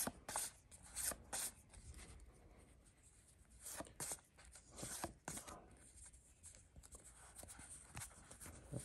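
Pokémon trading cards being flipped through by hand: each card slides off the front of the stack with a faint papery swish, one after another at irregular intervals.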